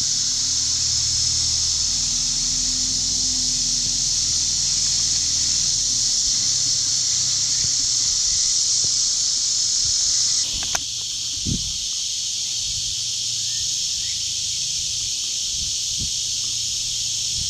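Steady high-pitched chorus of insects in a hay field, with a tractor engine's low hum underneath for the first few seconds that fades away. A brief click about ten seconds in, and a few faint low thumps near the end.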